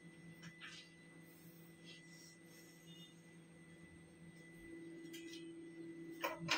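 Faint steady electrical hum with a thin high whine, growing a little louder after about four and a half seconds, with a few light ticks.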